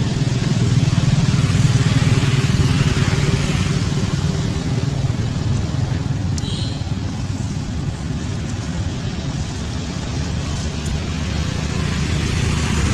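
A motor vehicle engine running steadily, with a brief high chirp about six and a half seconds in.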